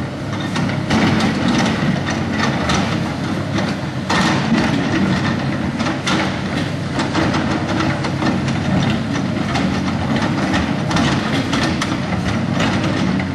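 Link-Belt 210 hydraulic excavator working: its diesel engine runs steadily under load while irregular metallic clanks and scrapes from the machine come through.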